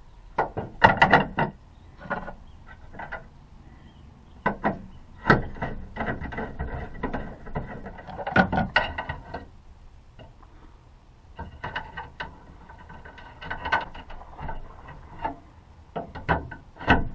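Replacement tailgate handle and latch parts of a pickup truck being fitted into the tailgate by hand: irregular clicks, knocks and scrapes of plastic and metal parts, with a few sharper clicks near the end.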